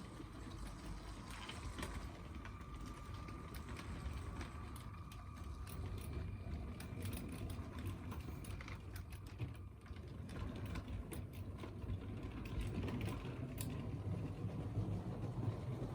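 LEGO train running on plastic track: a steady low motor hum with many irregular clicks from the wheels on the rails.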